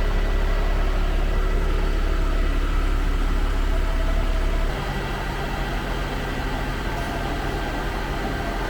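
Heavy diesel engine of a concrete pump truck running steadily with a deep hum; about five seconds in the hum drops lower and quieter and carries on.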